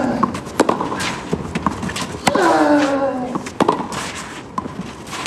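Tennis rally on a clay court: sharp pops of the ball struck by the rackets back and forth about once a second, with a player's long grunt falling in pitch on a shot about two seconds in.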